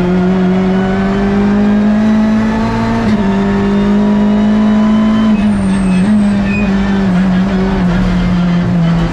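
Hyundai i30 N TCR race car's turbocharged four-cylinder engine heard from inside the cockpit, running hard at high revs. Its pitch climbs slowly, dips briefly about three seconds in and again about five seconds in, then falls slowly over the last few seconds.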